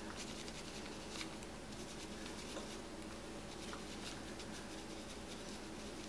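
Quiet room tone with a steady low hum and a few faint, soft ticks.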